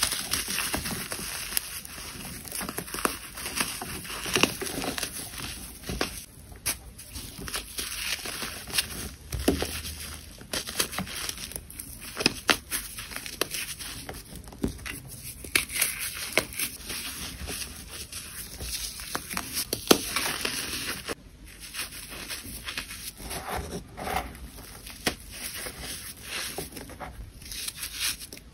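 Crumbly chunks of a baking soda and sand mix being crushed and rubbed between fingers: a steady gritty crunching and crumbling, with many sharp little snaps as pieces break.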